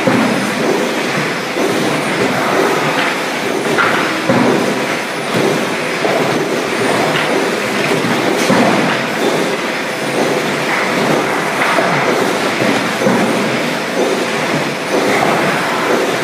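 Steady clattering of paper-cup production machinery, with scattered knocks.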